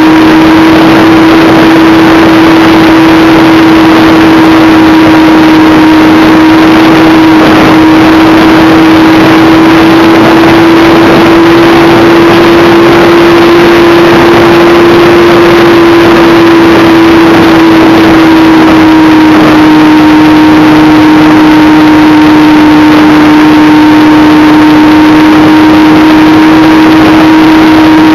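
Radio-controlled model Me 163 Komet in flight, heard from a camera on board: the model's motor gives a steady whine that rises a little in pitch around the middle and settles back, over loud, constant rushing wind noise.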